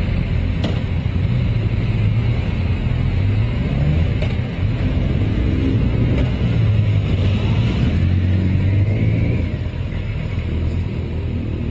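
Motorcycle engine running at low road speed, its note rising and falling slightly, then easing off about three-quarters of the way through.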